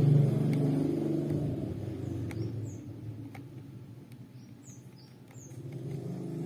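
A low droning hum fades away over the first two seconds and swells back near the end. In the quieter middle come a few short bird chirps and some faint light clicks.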